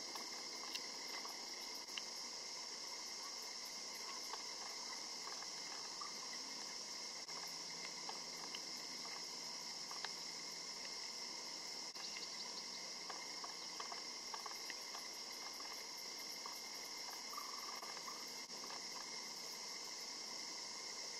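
Steady, high-pitched chorus of insects, running on without a break, with a few faint ticks scattered through it.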